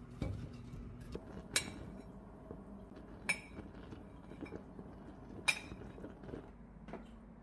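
Three sharp clinks of a metal utensil against a ceramic plate, roughly two seconds apart, with quiet handling of food on the plate between them.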